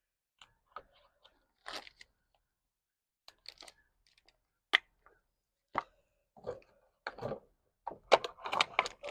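Irregular clicks, taps and crinkling from hands handling suet cakes, their plastic packaging and a suet feeder, growing busier near the end.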